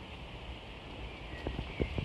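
Trees swaying in the wind: a steady rush of wind through the branches and leaves, with a few faint knocks near the end.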